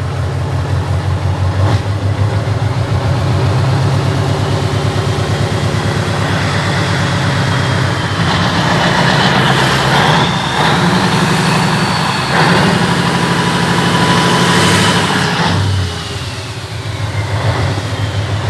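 V8 diesel engine with its turbocharger removed, running with an even, pulsing beat. It is revved up in several louder stretches in the second half, then drops back toward idle near the end.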